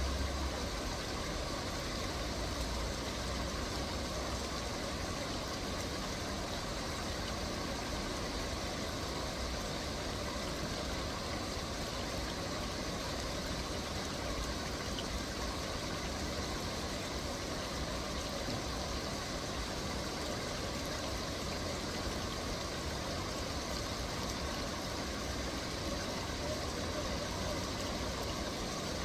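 Steady background noise, an even hiss with a low hum under it, with no distinct events.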